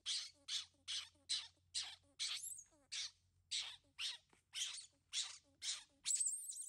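A baby monkey crying in a rapid run of short, shrill squeaks, a little over two a second, with a longer high squeal near the end.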